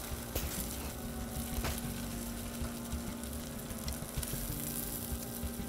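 Thick-cut bacon strips sizzling on a Blackstone 22-inch griddle, with a few sharp clicks of metal tongs against the griddle top as the strips are turned.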